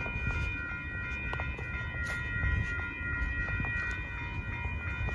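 Railroad grade-crossing warning bell ringing with quick, evenly repeated strikes, signalling an approaching train, over a steady low rumble.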